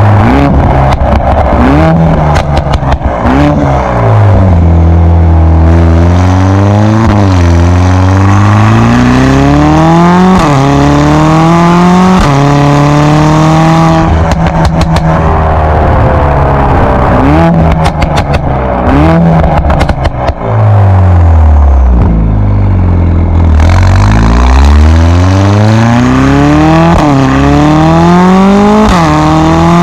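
Stage 2 tuned 2020 Mercedes-AMG A45 S's 2.0-litre turbocharged four-cylinder engine revving up and down repeatedly, loud. Rapid exhaust pops and crackles break out as the revs drop, near the start and again around the middle.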